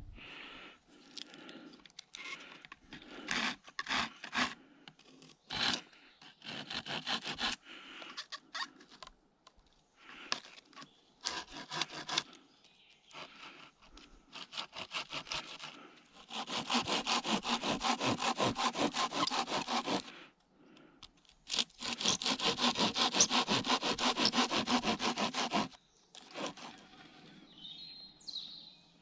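Hand pruning saw cutting through a wooden pole: short, irregular strokes at first, then two long runs of fast, even back-and-forth strokes of about four seconds each.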